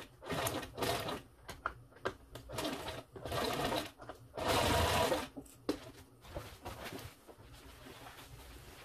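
Sewing machine stitching through a leatherette cushion band in several short bursts, the needle running in spurts, then much quieter from about six seconds in.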